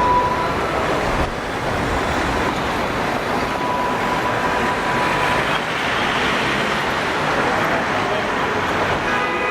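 A Tatra T3 tram running along a street among road traffic. A thin, high, steady squeal of its wheels on the rails sounds at the start and again for about two seconds in the middle.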